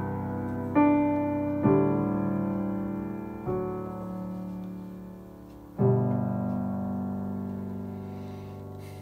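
Grand piano playing slow, sustained chords: four struck a second or two apart, the last, about six seconds in, left to ring and slowly fade.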